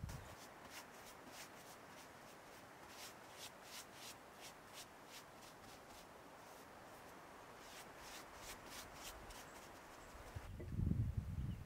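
Hand strokes rubbing over the wood of a chainsaw-carved log chair: a steady scratchy rubbing with runs of quick light ticks. About ten seconds in it gives way to a louder low rumble.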